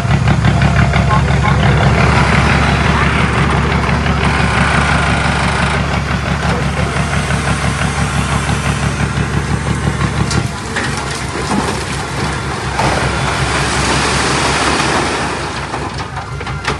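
Diesel engine of heavy earthmoving machinery running with a fast-pulsing low note. About ten and a half seconds in, the engine note drops suddenly, while a rushing, clattering noise carries on above it.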